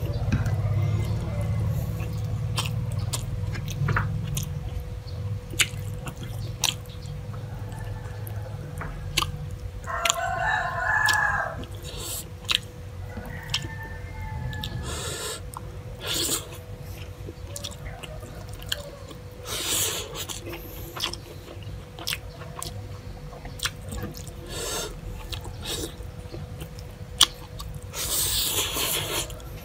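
Close-up hand-eating sounds: wet clicks and squishes of fingers pressing soft rice mixed with fish soup, and chewing, over a faint steady hum. A rooster crows once in the background about ten seconds in.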